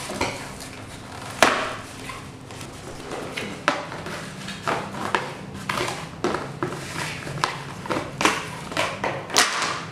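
Handling noises from unpacking and hanging a sheer curtain panel: irregular crinkles, rustles and light knocks from its plastic-and-cardboard packaging and the metal curtain rod, a few each second.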